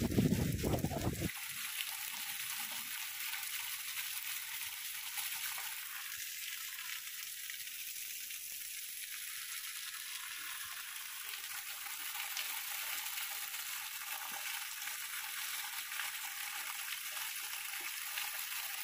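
Heavy rain falling steadily, an even hiss. A louder low rumble in the first second cuts off abruptly.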